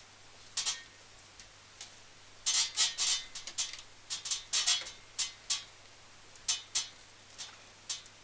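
Scattered light clicks and rattles of cables and plastic parts handled inside a PC case as a power cable is tied up, with a few brief clusters of quick ticks.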